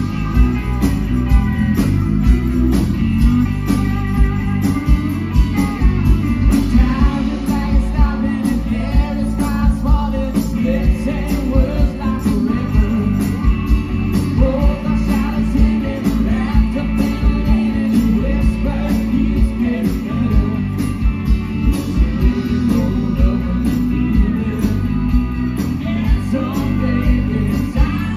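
Live band playing amplified through a PA: electric guitar, drum kit and keyboard with a steady beat, and a woman singing lead.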